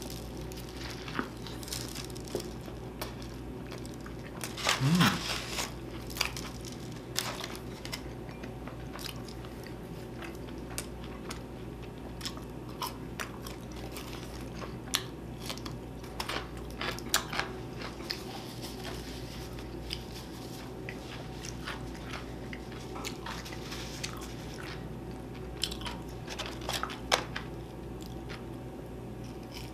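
Close-miked eating sounds: biting and chewing with scattered wet mouth clicks and light crunches, over a steady low hum.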